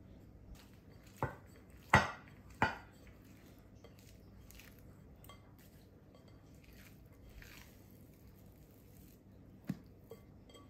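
Glass mixing bowl knocking three times on a hard kitchen counter as it is set down, the middle knock loudest, followed by faint soft sounds of hands working sticky sourdough dough in the bowl, with one sharp clink near the end.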